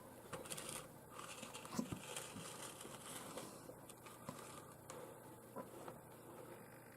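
Faint handling noise: soft rustling with a few small, light clicks scattered through.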